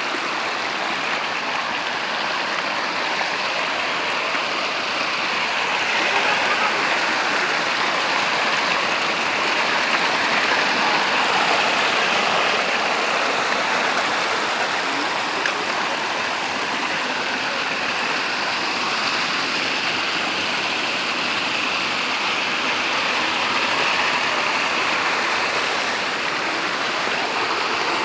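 Running water rushing steadily, a continuous flow that swells slightly in loudness now and then.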